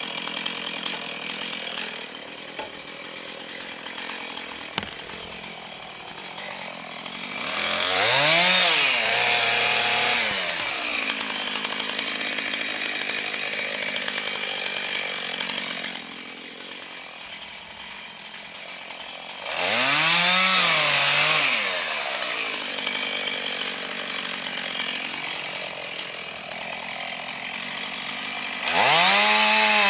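Husqvarna two-stroke chainsaw with a 16-inch bar running at low revs, throttled up hard three times, its pitch climbing and then sagging and falling back, while cutting into the trunk of a dead ash tree during felling.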